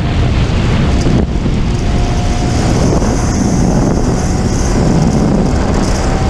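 Wind buffeting a helmet-mounted camera's built-in microphone while riding a 2015 Honda Grom, with the motorcycle's small single-cylinder engine running underneath and a faint steady whine.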